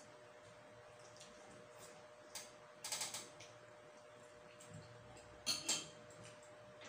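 A few faint crackling clicks as food is handled and peeled at the table, the sharpest pair about five and a half seconds in, over a faint steady hum.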